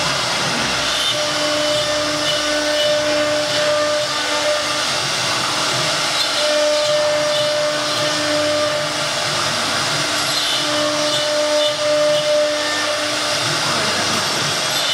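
A CNC router's 6 kW spindle cutting MDF board: a loud steady whir and rush of cutting, with a pitched whine that drops out and comes back every few seconds as the cut goes on.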